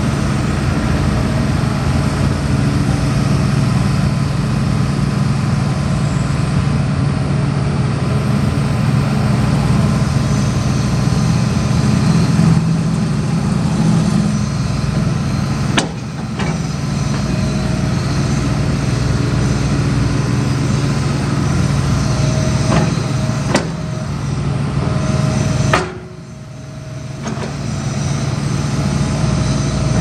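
Hitachi Zaxis hydraulic excavator's diesel engine running steadily as the boom, arm and bucket are worked. A few sharp knocks come midway, and the engine sound drops briefly about four seconds before the end.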